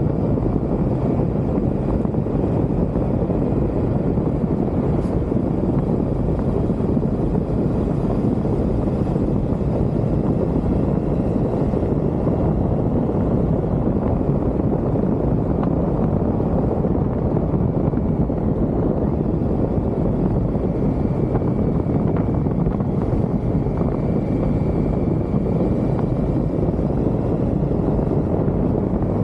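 Triumph Tiger motorcycle ridden at a steady pace: a continuous low rush of wind on the microphone, with engine and road noise underneath, level throughout.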